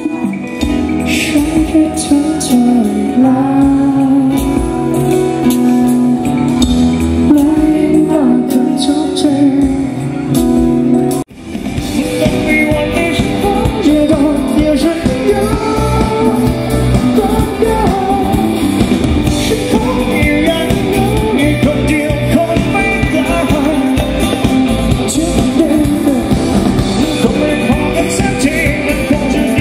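A band playing a song with a lead vocal. About eleven seconds in the music breaks off for a moment and a fuller band section with singing takes over.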